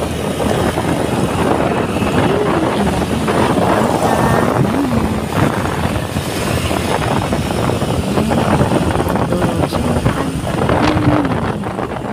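Motorcycle ride in traffic: steady wind rush on the microphone over the running engine, with a low engine tone rising and falling several times.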